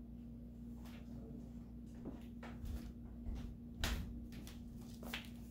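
A string of short knocks and soft thumps as a person gets up from a metal folding chair and walks barefoot over a hardwood floor to the camera, with the loudest knock, handling of the camera, about four seconds in. A steady low hum runs underneath.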